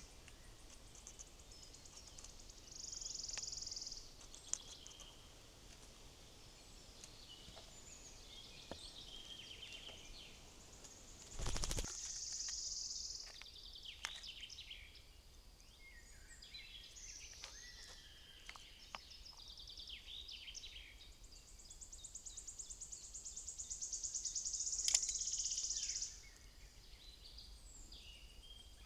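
Wild songbirds calling: many short high chirps and calls, and three longer, rapid buzzy trills. About a third of the way in there is one brief thump or flutter.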